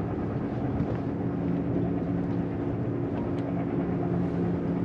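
An engine running steadily at one speed: a low, even droning hum that neither rises nor falls.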